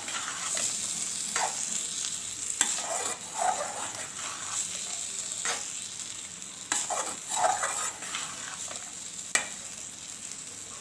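Chana dal frying in masala in a metal pan with a steady sizzle, while a perforated metal spoon stirs and scrapes through it. The spoon gives several sharp clicks against the pan along the way.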